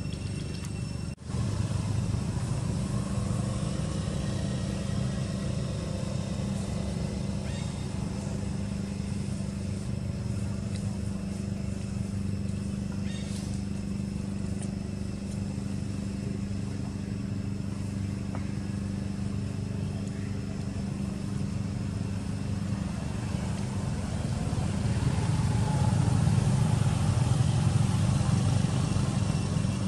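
An engine running steadily, a low hum that grows louder for a few seconds near the end.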